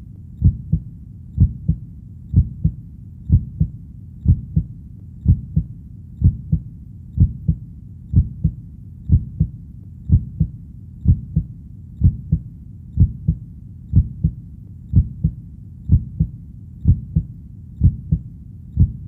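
Heartbeat: a steady double thump, lub-dub, repeating evenly about once a second, with a low rumble between the beats.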